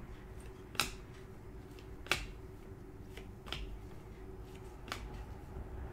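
Paper trading cards flipped one at a time off a stack by gloved hands. Each card gives a short sharp snap, about one every second and a half.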